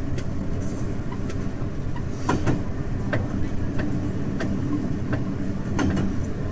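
Diesel railcar running along the track: a steady low engine drone, with the wheels clicking over rail joints every half second or so.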